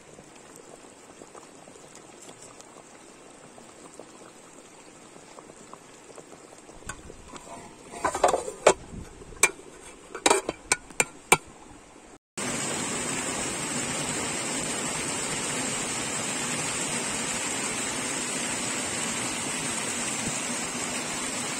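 A pot of lamb stew boiling hard, a loud steady bubbling that starts abruptly about twelve seconds in. Before it comes a short run of sharp clicks and knocks.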